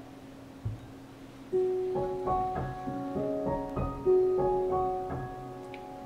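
Background piano music: a slow, simple melody of single held notes that comes in about a second and a half in, with a soft knock shortly before it.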